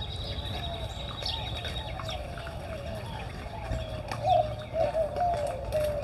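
Doves cooing in a slow, wavering series that grows louder over the last two seconds, with scattered small bird chirps and a thin, steady high tone for the first two seconds.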